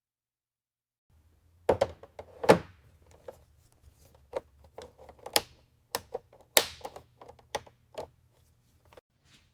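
A string of irregular knocks, clicks and clunks, about two dozen and a few loud ones among them, over a low steady hum that starts about a second in.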